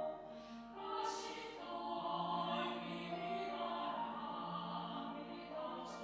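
Mixed church choir of women and men singing a sacred anthem in held chords, with short sibilant consonants about half a second and a second in and again near the end.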